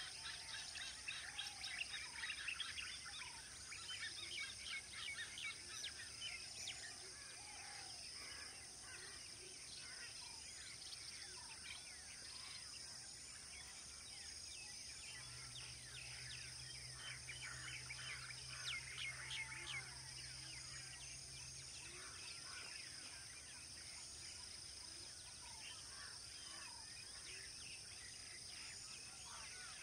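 Birds chirping and calling in quick, scattered short notes, busiest in the first several seconds, over a steady high-pitched drone. A faint low hum comes in about halfway through and stops some six seconds later.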